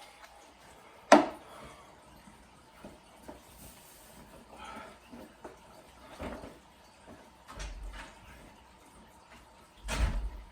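Scattered knocks and clatters of things being handled: one sharp knock about a second in, a few lighter clicks and taps, and a heavier thud near the end.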